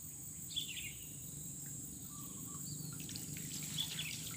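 Steady high-pitched drone of insects such as crickets, with a few short bird chirps scattered through it.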